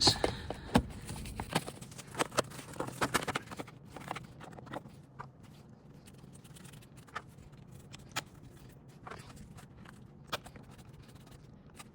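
Scattered light clicks and knocks of hand work on engine parts, closer together in the first few seconds and sparse after.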